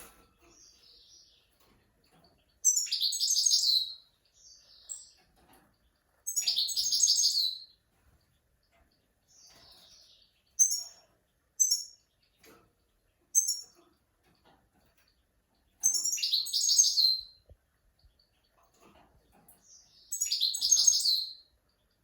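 European goldfinch singing the 'switty' song used to tutor young goldfinches and goldfinch-canary mules. Four loud, high phrases of about a second and a half each, with short single chirps and soft twittering between them.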